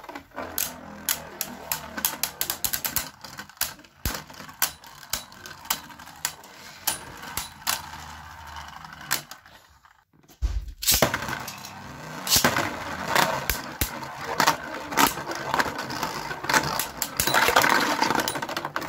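Fafnir and Longinus Beyblade Burst tops spinning and clashing in a plastic stadium: a whirring with many sharp clicks as they strike each other and the walls. About ten seconds in it falls silent for a moment, then starts again suddenly with a new round of clashing that grows dense near the end.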